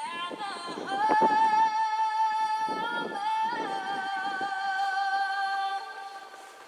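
A melody of long held notes, high and steady with many overtones, the pitch stepping down a couple of times.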